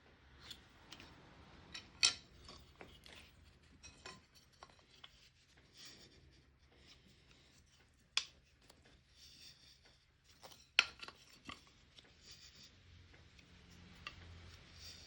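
Light hand-tool work on wood: irregular scraping and rubbing strokes with a few sharp clicks, the loudest about two, eight and eleven seconds in.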